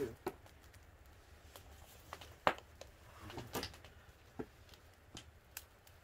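Faint scattered clicks and crackles at a charcoal grill as a frog is handled and laid on it, with one sharper click about two and a half seconds in.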